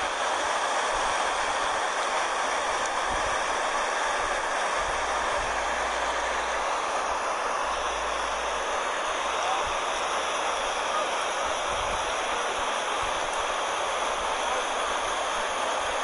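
Steady rush of river water pouring over a low weir: an even, continuous hiss of white water.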